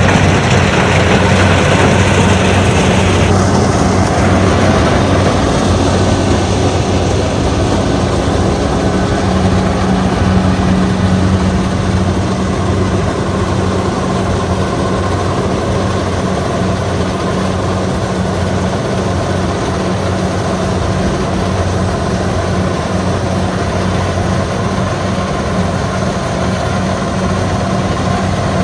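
Kubota DC-70 combine harvester's diesel engine running steadily with a constant low hum as the machine cuts and threshes rice.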